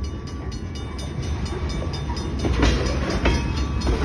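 Freight train of potash cars rolling past at close range: a steady low rumble with the regular click of wheels over rail joints, and a few short high-pitched squeals about two and a half to three and a half seconds in.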